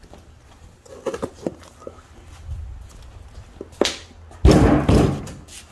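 A cardboard bag-in-box of motor oil being handled: a few light knocks, then a loud thud with cardboard rustle about four and a half seconds in as the heavy box is set down on a bench.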